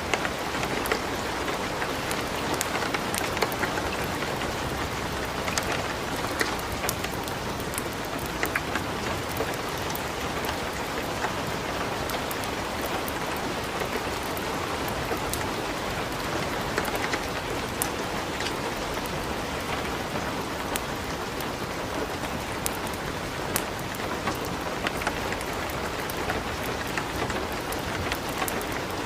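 Light rain and a wood fire crackling in a fireplace: a steady rain hiss dotted with frequent small sharp clicks and pops.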